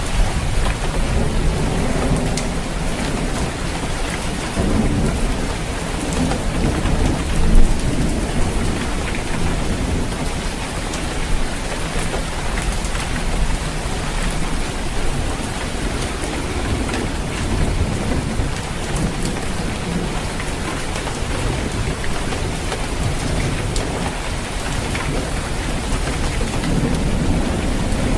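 Steady heavy rain falling on a roof, with low thunder rumbling under it. A single sharp tap stands out about seven and a half seconds in.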